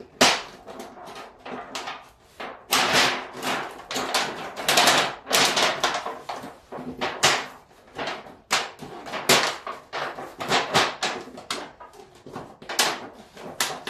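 Irregular run of sharp knocks and scrapes from utensils working in the kitchen, several a second with short gaps, and one of the loudest knocks near the start.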